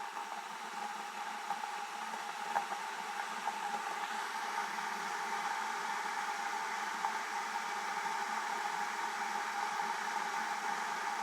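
Electric kettle heating water: a steady hiss that slowly grows louder, with a few faint ticks and pops, as the water heats toward the boil.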